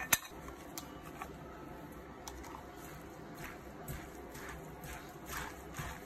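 A sharp click just after the start and a few lighter clicks, then soft squishing rustles in the last few seconds as a bare hand mixes julienned potato, bracken and bean sprouts with seasoning in a stainless steel pan.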